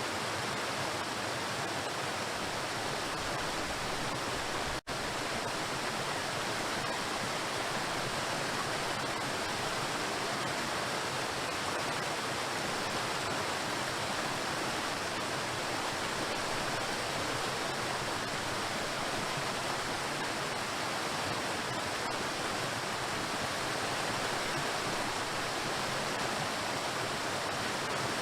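Waterfall, water pouring and crashing onto rocks in a steady, even rush. The sound cuts out for an instant about five seconds in.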